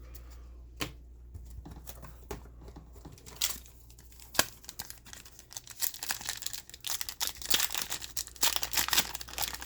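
A trading-card pack's wrapper being torn open and crinkled. A few light clicks and snaps of handling come first, then dense crinkling from about five seconds in.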